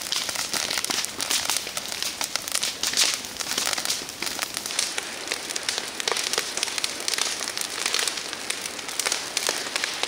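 Dry grass and brush burning: dense crackling, many small sharp snaps over a steady hissing rush.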